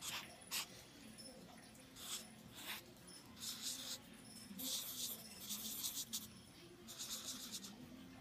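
Felt-tip marker strokes on lined notebook paper: a few short ticks of the pen tip in the first three seconds, then several longer dry, scratchy strokes of about half a second to a second each in the second half.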